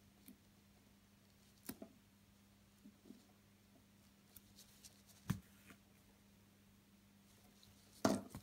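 Soft scratches and rustles of a needle and silk ribbon being drawn through burlap stretched in a plastic embroidery hoop, over a faint low hum. There is a short knock about five seconds in and a louder rustle near the end as the hoop is tipped up and the ribbon is pulled through.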